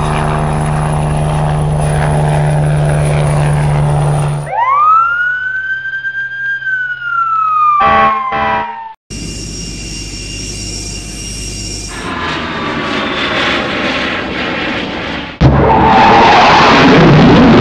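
Dubbed vehicle sound effects. A fire truck's engine runs steadily, then a siren gives one wail that rises and slowly falls, followed by more engine noise. About 15 seconds in, a loud jet airliner engine roar starts suddenly as the plane taxis.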